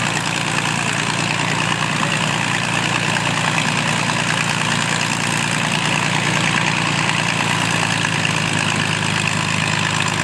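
Vintage biplane's piston engine idling steadily on the ground, its wooden propeller turning.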